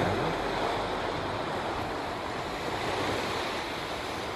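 Steady wash of ocean surf on a beach, a continuous even rushing with no distinct breaks.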